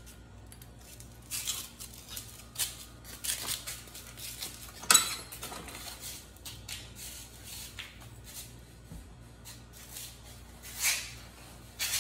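Scattered light clicks, clinks and rattles of things being handled, with a sharp knock about five seconds in and another clatter near eleven seconds.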